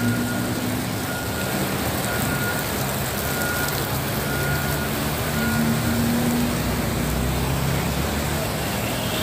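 Heavy rain hissing steadily together with road traffic on a wet road: car and motorbike engines running and passing. A faint high beep repeats about once a second through the first half or so.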